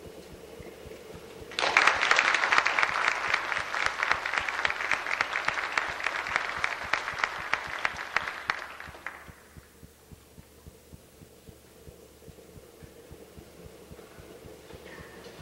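Audience applauding after a concert band piece ends. The clapping starts about a second and a half in and dies away after about seven seconds, leaving a quiet hall with a faint steady hum.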